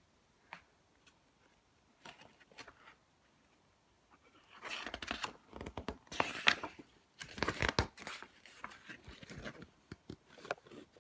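A picture book being handled, its cover opened and pages turned: a few faint clicks, then several seconds of papery rustling and crackling, loudest around the middle.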